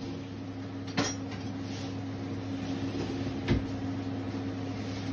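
Kitchen utensils being handled: a sharp clack about a second in and a duller knock about two and a half seconds later, over a steady low hum.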